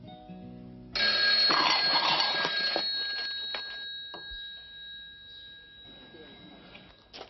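A bell struck once about a second in with a loud clang, its high tone ringing on and slowly fading over several seconds.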